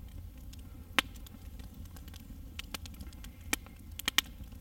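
Campfire crackling with scattered sharp pops, the loudest about a second in and a quick cluster near the end, over a low steady rumble.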